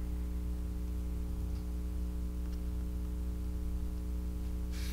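Steady low background hum made of several even tones, with a couple of faint ticks.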